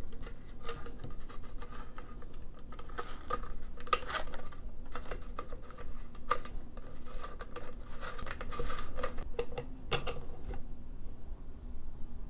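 Irregular light metallic clinks and scraping from a wrench and a Noveske flush QD sling cup as the cup is threaded into a spiked nut held inside a hollow fixed AR-15 buttstock.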